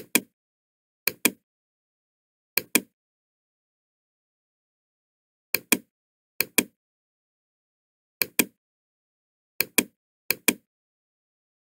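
Computer mouse clicks with dead silence between them: eight sharp double ticks, each a button press and release, spread unevenly over the stretch.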